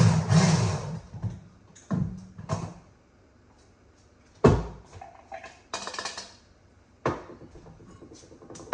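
An electric kitchen mixer runs and stops about a second in. It is followed by several separate knocks and clatters of dishes and utensils, the loudest a sharp knock near the middle.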